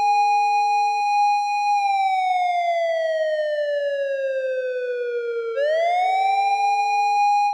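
Japanese police car siren wailing. The pitch holds high, slides slowly down over about four seconds, then sweeps quickly back up and holds again. A short, steady lower tone sounds beneath it near the start and again just after the rise.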